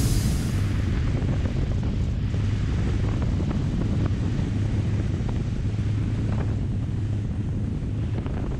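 Pershing 7X motor yacht running at high speed: a steady low engine drone under the rush of wind and churning spray from its surface-drive wake.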